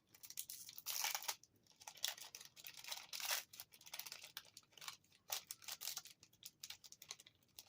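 Foil wrapper of a Yu-Gi-Oh booster pack crinkling and tearing as it is opened, with the cards being handled: a run of short crackles and clicks, loudest about a second in and again a little past three seconds.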